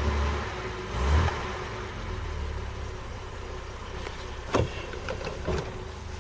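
Jaguar XJ6 Series 1 straight-six running at a slow idle, partly warmed up, with a brief rise in revs about a second in. A sharp knock comes about four and a half seconds in, and a smaller one follows a second later.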